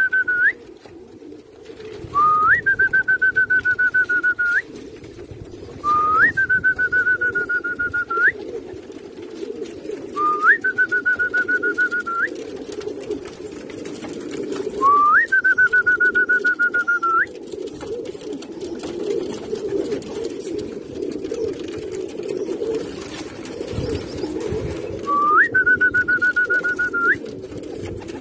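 A person whistling long held notes, each about two seconds, scooping up into the note and flicking up at its end, repeated about every four seconds with a longer pause before the last. Homing pigeons coo underneath. It is the fancier's whistle that calls arriving racing pigeons down into the loft's trap.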